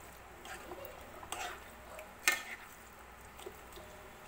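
Spatula stirring thick pork gravy in a non-stick pan, with soft scraping and a few light clicks. About two seconds in there is one sharp knock of the spatula against the pan.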